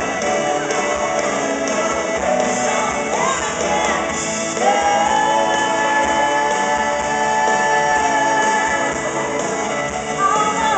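Live country-pop band playing, with a female lead vocal over electric guitars and drums. The singer holds one long note for about four seconds from roughly the middle of the stretch.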